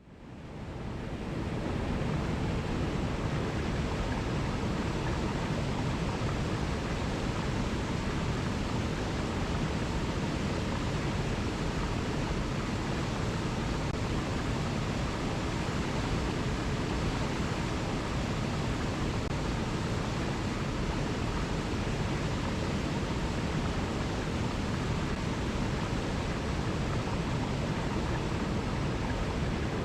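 Alpine mountain river running over cascades: a steady, deep rush of water that fades in over the first couple of seconds.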